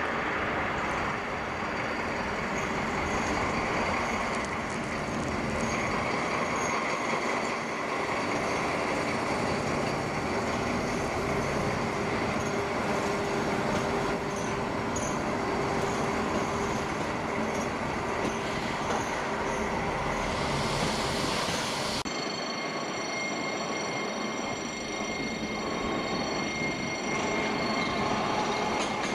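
Rolling noise of a train running on rails, steady, with an abrupt change in the sound about three-quarters of the way through.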